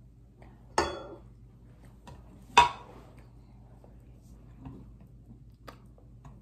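Two sharp clacks about two seconds apart as a plastic rice paddle serves rice from a rice cooker onto a plate, knocking against the dishes. Then faint soft sounds of fingers working the rice.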